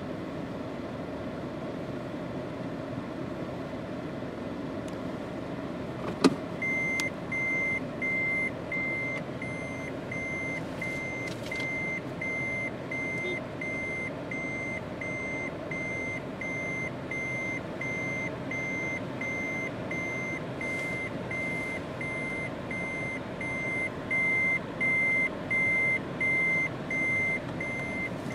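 A vehicle's reverse warning beeper sounding evenly, about two beeps a second, over the steady sound of the engine running. The beeping starts just after a sharp click about six seconds in.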